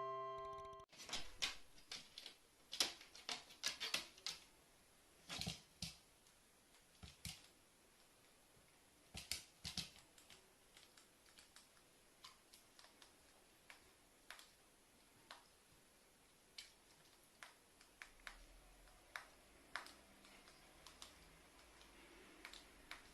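Irregular light clicks and taps, several close together at times with pauses between, growing sparser toward the end.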